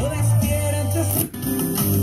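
Guitar music from an FM broadcast played through a 1972 Sony STR-7065 receiver, sounding clean. Past halfway it drops out for a moment as the tuning dial is turned, then different music comes in, with no rough noise between stations.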